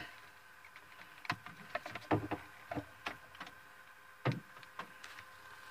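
Scattered clicks and knocks from a handheld two-way radio being picked up and handled, its keys pressed, with a faint steady whine underneath.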